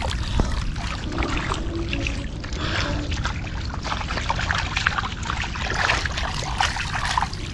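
Shallow muddy water sloshing with many small splashes and wet clicks, as feet wade through it and a hand squelches down into soft tidal mud.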